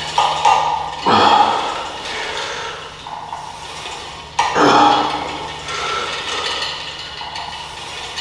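Gym weights clanking: two loud metallic knocks, about a second and four and a half seconds in, each ringing on for about a second, over a steady low hum.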